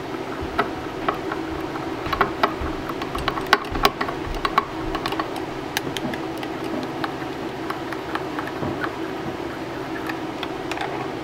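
Metal spatula stirring colour powder into liquid soft-bait plastic in a glass measuring cup, clicking and scraping irregularly against the glass, the clicks most frequent in the first half. A steady low hum runs underneath.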